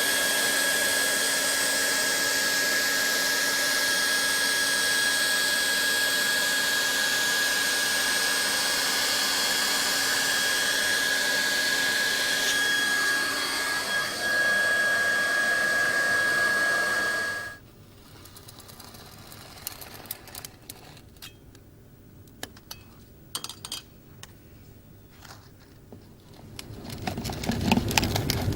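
Leister Triac hand-held hot-air welding gun's blower running steadily with a high whine while welding vinyl rod into flooring. It cuts off abruptly about two-thirds of the way in, followed by light clicks and handling noises.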